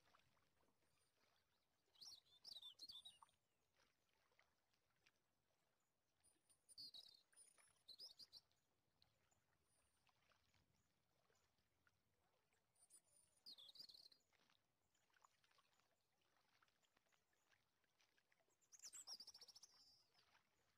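Faint bird chirping in four short bursts, with near silence between them.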